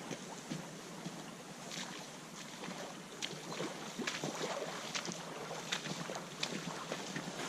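Stream water running, with irregular sharp splashes and knocks throughout, more of them in the second half.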